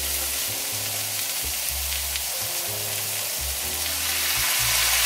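Shredded cabbage sizzling in a hot cast-iron skillet, the sizzle growing louder near the end as soy sauce is poured into the pan. Background music with low held notes plays underneath.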